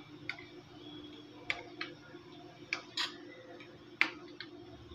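Metal spoon clinking against a ceramic bowl while stirring powdered coconut milk into hot water to dissolve it: about seven irregular sharp clinks over a faint steady hum, the loudest around three and four seconds in.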